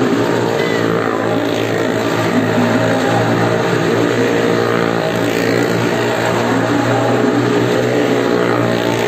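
Motorcycle engine running steadily at high revs as the bike circles the vertical wooden wall of a well-of-death drum, with no pauses.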